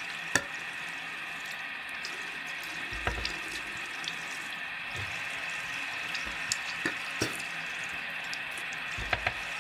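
Tap water running steadily into a bathroom sink, with a few light clicks over it.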